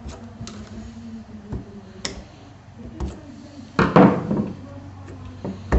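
Light metal clicks and taps of a screwdriver working the inner nuts on the bolts of a stacked-plate HHO dry cell, then a louder clunk with a short ring about four seconds in as the screwdriver is put down on the wooden bench.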